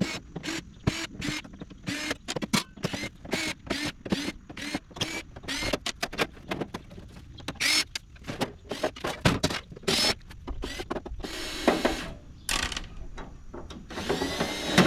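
A power driver backing out sheet-metal screws, sped up: many short whirring bursts in quick succession, with two longer runs near the end.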